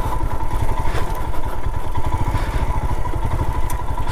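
Royal Enfield Himalayan's single-cylinder engine running steadily, a quick even low pulsing with a thin steady whine above it.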